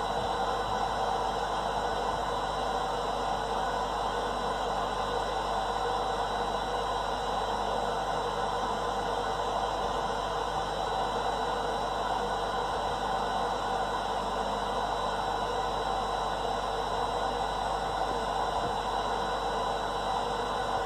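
Steady womb-sound noise played to soothe a newborn to sleep: an even whooshing hiss over a low rumble, with a thin high tone running through it.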